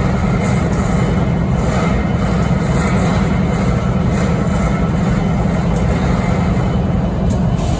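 BNSF 5910 diesel locomotive idling, a loud steady low rumble with a faint hiss above it, the unusual idle noise the title calls strange. The low rumble drops away just before the end.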